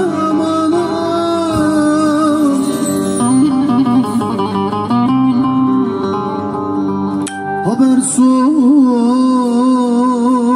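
A man singing a Turkish uzun hava, long free-rhythm lines of held notes that waver and bend, over plucked bağlama accompaniment. A short break comes about two-thirds of the way through, then a new phrase sweeps up.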